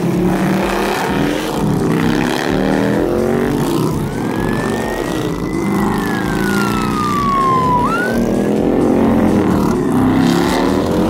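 A line of cruiser and touring motorcycles riding past, their engines loud. About halfway through, a siren from a following emergency vehicle rises, slowly falls, then jumps back up.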